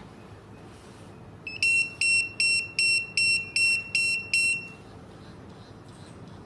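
Guest paging system pager beeping in its high-speed mode: about eight quick, high-pitched beeps, roughly two and a half a second, for about three seconds and then stopping.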